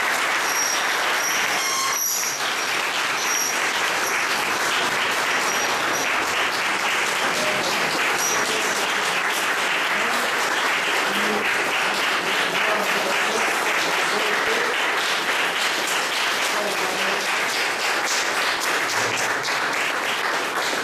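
Steady, continuous applause from a roomful of people, kept up without a break.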